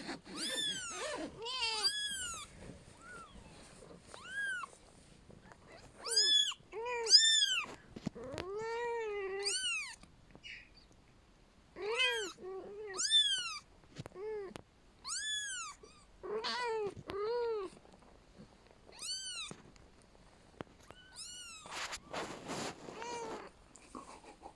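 Kitten meowing over and over: short, high-pitched calls of about half a second, each rising then falling in pitch, with brief pauses between them.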